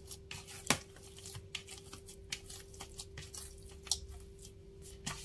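A hand squeezing and kneading a wet tofu-and-flour dough with raw egg in a plastic bowl: soft, irregular squelches and clicks, with a sharper tap under a second in and another about four seconds in. A faint steady hum runs underneath.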